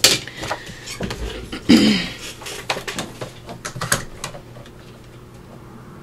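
Patterned paper being picked up and handled on the craft table and set into a paper cutter: a run of clicks and taps, loudest about two seconds in, dying down after about four and a half seconds.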